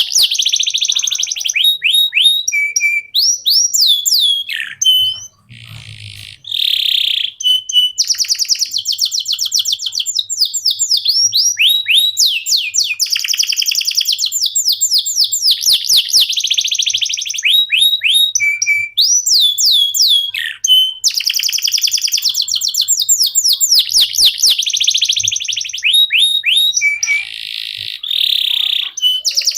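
Canary singing a long, continuous song of fast trills and rolls, with runs of quick downward-sweeping notes, broken only by a short pause about five seconds in.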